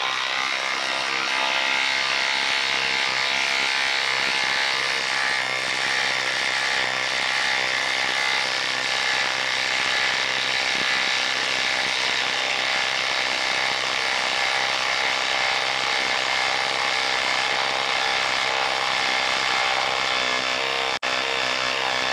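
Cordless Craftsman impact driver hammering steadily under load as it drives a 6-inch lag screw into a log, with a short break near the end.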